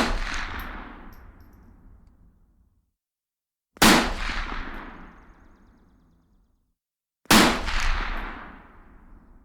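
Three rifle shots, about three and a half seconds apart, each a sharp crack followed by a long echo that dies away over two to three seconds.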